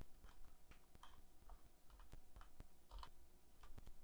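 Faint, irregular keystrokes on a computer keyboard as a password is typed.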